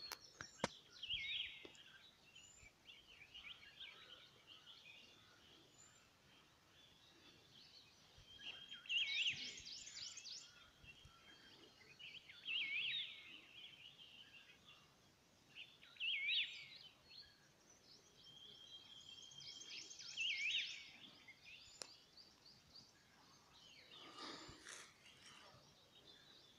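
Songbirds calling in short, sweeping high phrases every few seconds over faint outdoor background hiss, with a brief fuller noise near the end.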